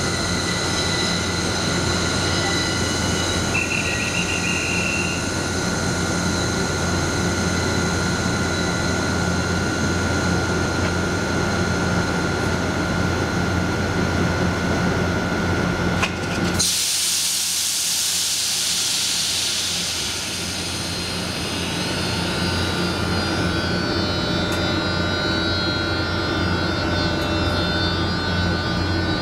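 Locomotive standing at the head of the train: a steady hum with high whining tones. About sixteen seconds in, a loud hiss lasts a few seconds while the hum drops away, then the hum returns.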